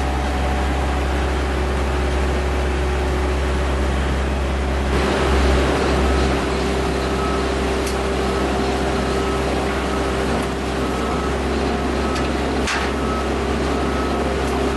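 Engine crusher running with a loud, steady mechanical drone; a steady hum in it grows stronger about five seconds in. From about nine seconds a short beep repeats about one and a half times a second, and a single sharp knock comes near the end.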